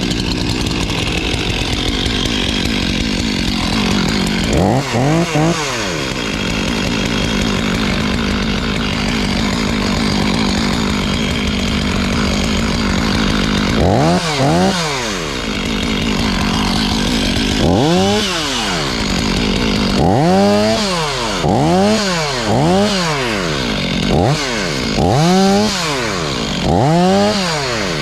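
Two-stroke chainsaw running, with its throttle blipped so the engine whines up and drops back: a few isolated revs at first, then rapid repeated revs about every second and a half near the end.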